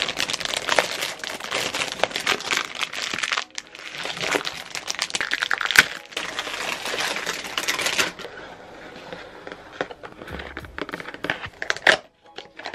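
Close-up crinkling and crumpling of a foil wrapper being torn off a boxed toy wand, dense and crackly for the first eight seconds or so, then quieter, sparser rustling as the cardboard box inside is handled.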